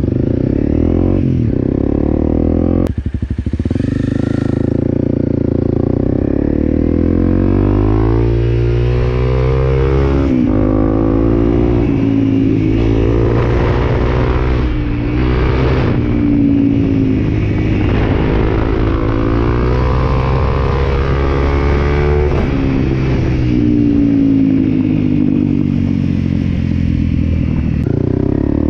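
Honda CRF250L's single-cylinder four-stroke engine under way, with its pitch climbing and falling again and again as the rider accelerates and backs off through the curves.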